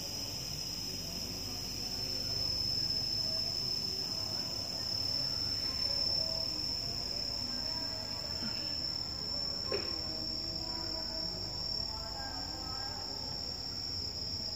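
Insects chirring in one steady, high-pitched tone, over a low background rumble.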